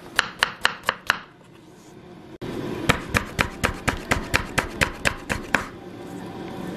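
Chef's knife chopping ginger finely on a wooden cutting board: quick, even strokes about four a second, in a short run, then a pause, then a longer run.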